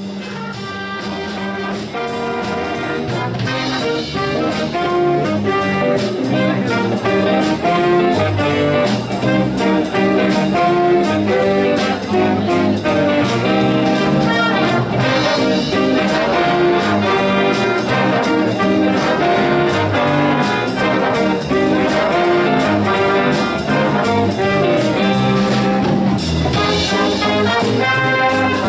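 High-school jazz big band playing live: saxophones, trumpets and trombones over guitar and bass, growing louder over the first several seconds and then holding steady.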